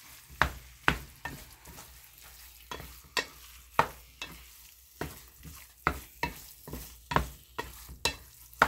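Wooden spatula stirring corned beef hash in a stainless steel skillet, scraping and knocking against the pan in irregular strokes about every half second to second. A faint sizzle of frying runs underneath.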